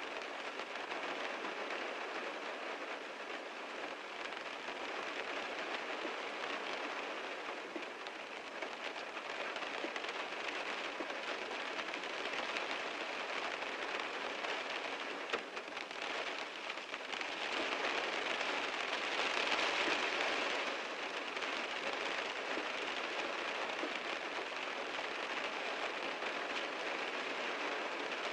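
Heavy rain falling on a car, a steady dense hiss of drops that swells louder for a few seconds about two-thirds of the way through, with a single sharp tap a little past halfway.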